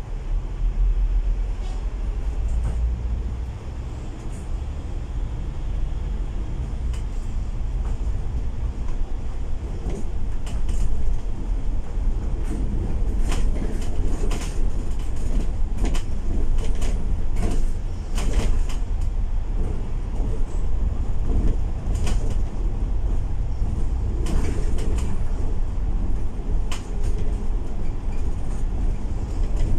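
Upper-deck cabin sound of a Volvo B8L double-decker bus under way: a steady low diesel rumble from its six-cylinder engine, with frequent sharp rattles and clicks from the bodywork.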